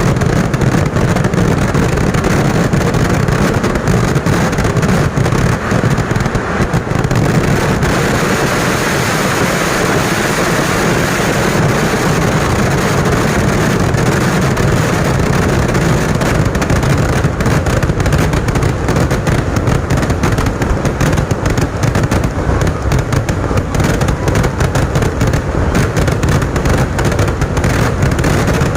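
Loud vedikettu, a Kerala fireworks barrage: a dense stream of firecracker explosions overlapping into a continuous crackle over a low rumble, the bangs coming thicker in the second half.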